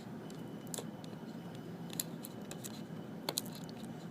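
Hands handling a cardboard product box: a few light clicks and taps, two of them close together near the end, with soft rustling in between.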